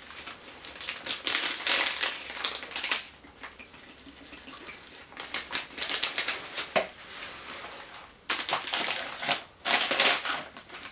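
Crinkling and rustling of MRE packaging, a plastic ration-heater bag and cardboard meal sleeve being handled and folded, in three spells of crackling with short quieter gaps between.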